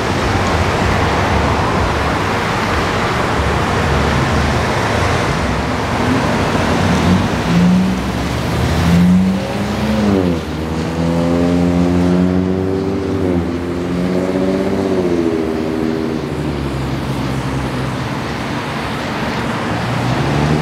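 Cars passing on a wet city street: a steady hiss of tyres on wet pavement, then car engines accelerating away from the intersection, their pitch rising and levelling off. Another car starts pulling away near the end.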